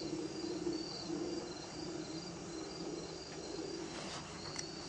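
Insects chirping in a steady, evenly repeating rhythm, with a few faint clicks about four seconds in.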